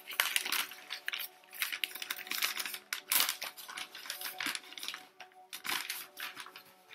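Paper wrapping rustling and crinkling as a package of plant cuttings is unwrapped by hand, with a run of sharp crackles that is loudest about three seconds in and thins out near the end. A faint steady hum lies underneath.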